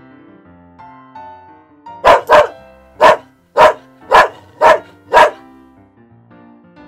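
A dog barking seven times in quick succession, the first two close together, over light piano background music.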